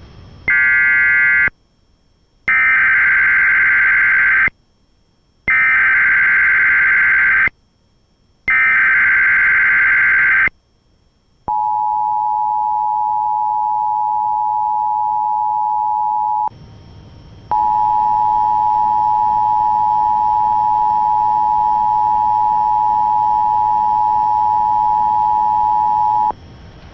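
Emergency Alert System SAME header: bursts of digital data tones, the first short and then three of about two seconds each, with a second of quiet between them, encoding a Child Abduction Emergency (AMBER Alert). Then the EAS attention signal: a steady, harsh dual tone that runs about five seconds, breaks off for about a second, and resumes for about nine seconds.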